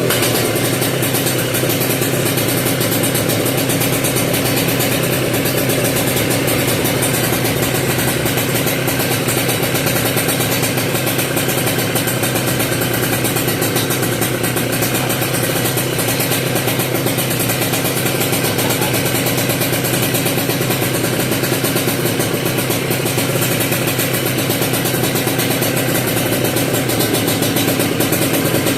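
Kawasaki Ninja RR 150 cc single-cylinder two-stroke engine, fitted with a WRX GP racing exhaust and a PJ38 carburettor, idling steadily.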